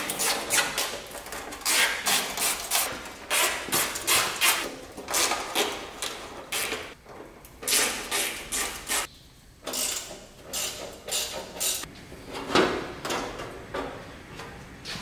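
Hand ratchet clicking in short irregular runs as the bolts along the top of a car's front fender are undone, followed by knocks as the loosened fender is handled and pulled away.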